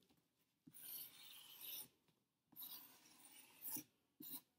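Marker drawing on cardboard: two faint strokes of about a second each, with a short pause between.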